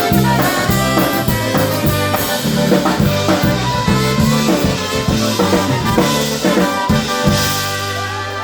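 Live polka band playing: brass and drum kit over a steady beat, ending on a held final chord about seven seconds in.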